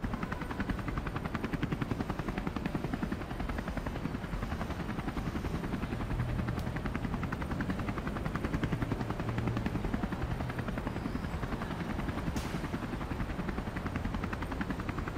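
Helicopter rotor chop: a steady, rapid beating of the blades.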